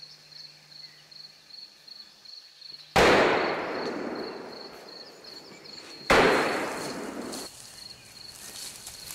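Two gunshots about three seconds apart, each echoing away through the forest for a second or two, over a steady, evenly pulsing high insect chirping.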